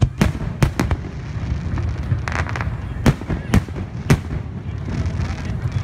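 Aerial fireworks shells bursting with sharp bangs: three in quick succession in the first second, then three more about three to four seconds in, over a steady low rumble.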